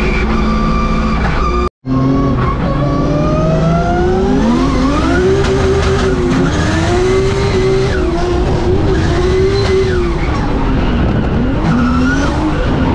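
Drift car engine, heard from inside the cabin, revving hard with its pitch rising and falling again and again as the throttle is worked through the slide, over tyres squealing. The sound cuts out for an instant just under two seconds in.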